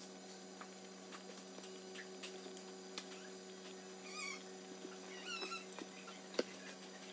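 A steady low electrical hum, with scattered faint ticks and two short runs of high squeaky chirps about four and five and a half seconds in.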